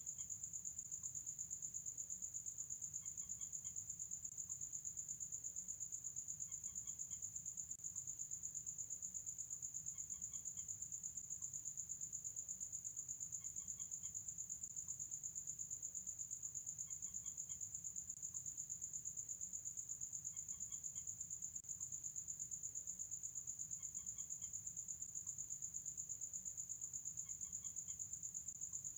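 Crickets trilling steadily and densely at night, the loudest sound. Over it a night bird gives a faint short call of a few quick notes, repeated about every three and a half seconds.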